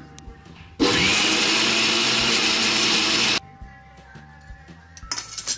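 Electric mixer grinder spinning up quickly and running for about two and a half seconds, grinding wet coconut chutney in a steel jar held shut by hand, then cutting off. A short clatter comes near the end.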